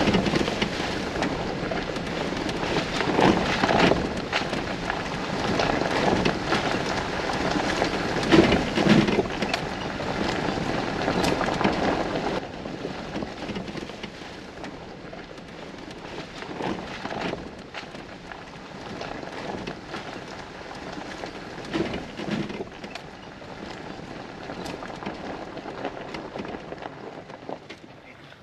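A Jeep driving a rough, muddy forest trail, heard from inside the cab: a steady rush of tyres and engine with repeated knocks and rattles. About twelve seconds in it drops to a quieter, even noise with only a few soft bumps.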